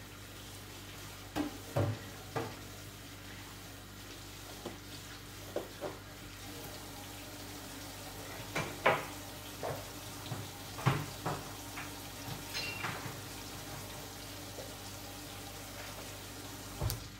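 Kitchen clatter: a scattering of sharp knocks and clinks of utensils and dishes, the loudest clusters about two seconds in and around the middle, over a steady low sizzle from a frying pan on the stove.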